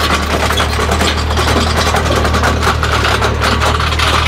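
Tractor engine running steadily under load, driving a mounted post-hole auger as it bores into dry, stony soil, with a continual gritty crunching and scraping from the auger flights over the engine drone.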